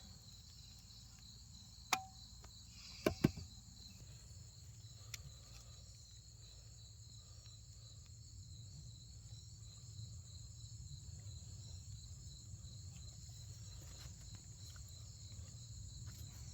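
Crickets chirring steadily in the background, with a sharp knock about two seconds in and two more knocks close together about a second later.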